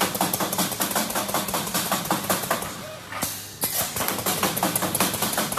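Semi-automatic wire mesh welding machine running: long bursts of rapid crackling clicks over a steady machine hum, with a brief pause about three seconds in before the next burst.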